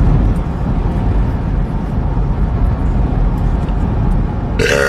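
Steady rumbling noise, heaviest in the low end, with a loud burp starting near the end.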